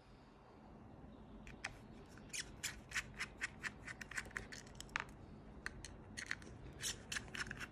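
Small screwdriver backing out the screws of the metal interface-slot cover plate on an IPU pump driver: a run of quick, light, irregular clicks and ticks from the tool in the screw heads, starting about a second and a half in.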